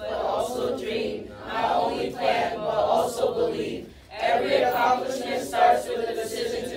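A group of teenage students' voices together in unison, in phrases broken by short pauses about a second in and about four seconds in.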